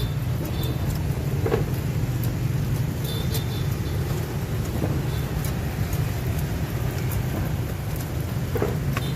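Steady low rumble of street traffic, with a few faint clicks scattered through.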